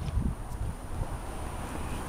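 Wind rumbling and buffeting on the camera's microphone, with a faint steady high whine underneath.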